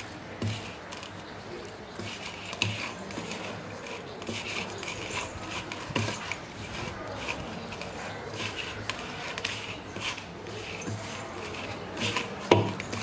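Hand kneading maida and dalda dough in a stainless steel bowl: irregular rubbing and squishing strokes, with occasional knocks of the hand against the bowl and one sharper knock near the end.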